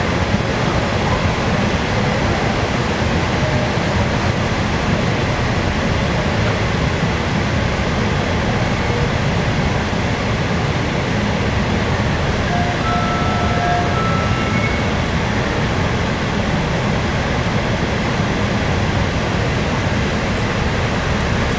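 São Paulo Metro Line 15 monorail trains running on the elevated guideway, heard from afar as a steady, even rush of noise.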